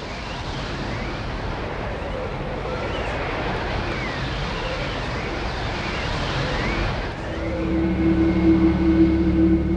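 Steady rushing roar of strong wind, a tornado soundtrack's wind noise. About three-quarters of the way through, a low droning music chord comes in and grows louder.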